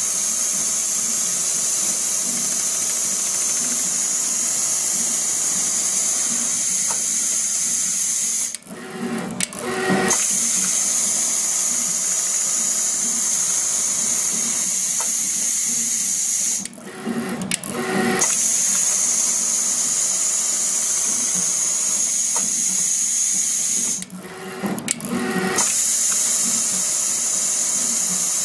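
Automatic CNC pattern sewing machine stitching steadily along a template, with a constant high hiss. Three times, about eight seconds apart, the running sound drops out for a second or two and a lower pitched hum is heard in its place.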